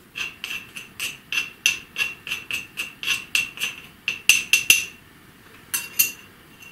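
Upturned ceramic mortar tapped repeatedly over a glass jar to knock out ground garlic-tablet powder. About three sharp, ringing knocks a second for nearly five seconds, then a pause and two more knocks near the end.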